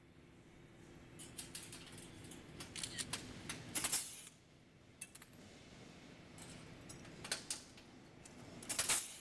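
Pneumatic rivet gun setting rivets into the blades of a stainless-steel turbine roof ventilator, with two loud hisses about four and nine seconds in. Between them the thin metal blades give light clicks and clinks as they are handled.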